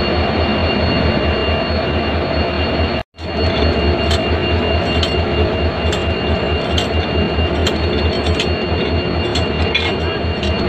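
Diesel locomotive engine idling close by: a steady loud rumble with a fast low throb. The sound cuts out for a moment about three seconds in, and from about four seconds on there are sharp metal clinks as the coupling gear is handled.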